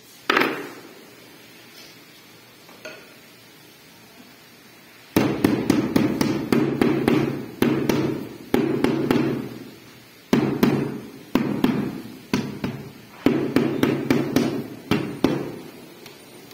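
Rubber mallet tapping a large floor tile down into its mortar bed to bring it level. There is a single knock at the start, then from about five seconds in, rapid runs of taps in several bursts, each tap ringing briefly through the tile.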